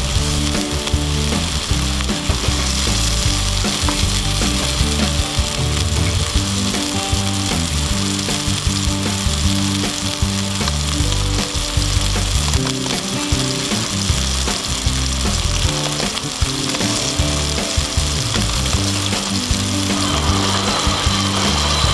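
Hamburger patties frying over a campfire, a steady sizzle throughout.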